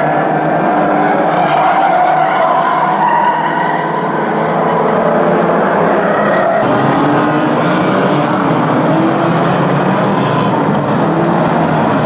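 Several banger-racing cars' engines revving hard as a pack races round a shale oval, their pitches rising and falling over one another. The sound changes abruptly about six and a half seconds in.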